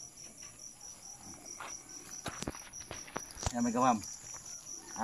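Crickets chirping in a steady, fast, even pulse. There are a few sharp clicks about two and a half seconds in, and a short burst of a person's voice near four seconds, which is the loudest sound.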